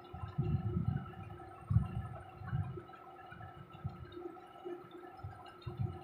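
Irregular low rumbles and bumps on the microphone, bunched in the first second and recurring a few times after, over a steady background hum.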